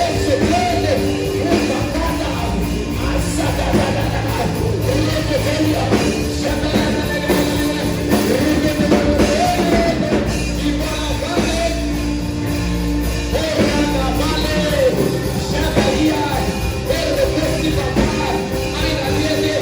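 Live worship music: sustained chords over a steady low drone, with several voices singing and wavering over them.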